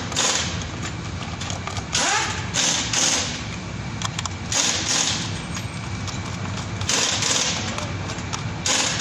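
Hand ratchet tightening a bolt: repeated short bursts of ratchet clicking, often in pairs, a second or two apart, over a steady low hum.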